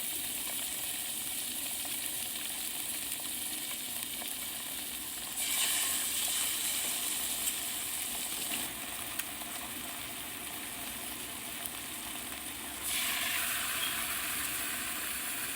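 Chicken pieces sizzling in olive oil in a frying pan on low heat. A steady frying hiss that swells louder for a few seconds around the middle and again near the end.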